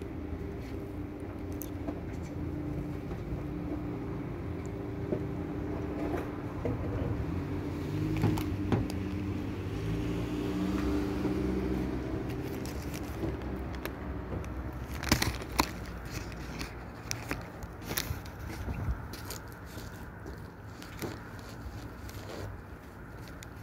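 A steady motor hum with several steady tones, fading in the second half, where a run of sharp clicks and knocks takes over.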